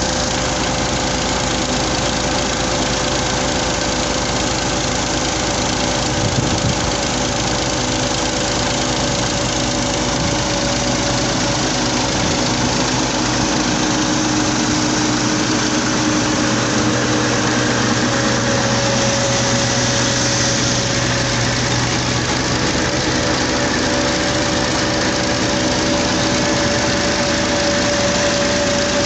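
Massey Ferguson 240 tractor's three-cylinder diesel engine running steadily with a steady whine over it, powering a flour mill through its PTO shaft. A single knock about six seconds in.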